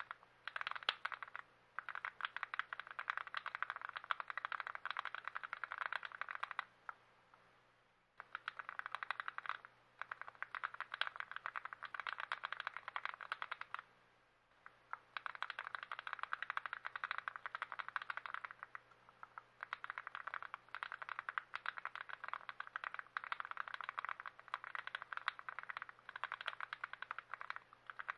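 Typing on a TX66 custom mechanical keyboard: a fast clatter of keystrokes in runs of several seconds, broken by brief pauses.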